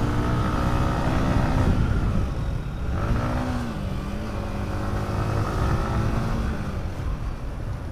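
Yamaha MT-15's 155 cc single-cylinder engine running through its stock exhaust while riding. The engine pitch holds steady, rises briefly about three seconds in, then settles lower.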